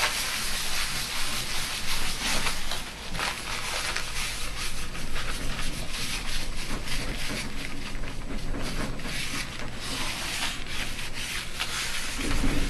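A rag scrubbing a glass grinding slab with quick back-and-forth rubbing strokes, wiping off oily pigment paste. A brief low thump comes near the end.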